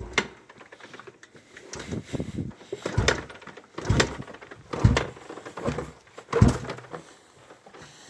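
2000 Honda XR400's single-cylinder four-stroke engine being kicked over, giving a series of thumps about once a second without catching. It wants to fire but will not start.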